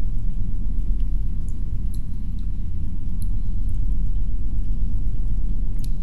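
Steady, muffled low rumble of wind, heard as if through thick palace walls, with a few faint high ticks.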